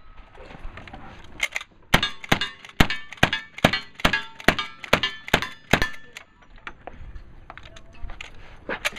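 Lever-action rifle firing a rapid string of about ten shots, two to three a second, with the steel targets ringing as they are hit. Fainter clicks and knocks follow near the end.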